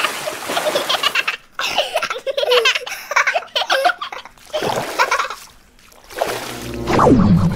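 Cartoon splashing sound effects mixed with children's laughter and a baby's giggles.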